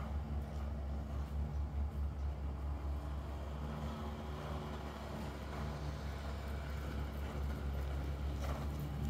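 Steady low mechanical hum, like a motor or engine running, with the soft hoofbeats of a horse cantering on arena sand.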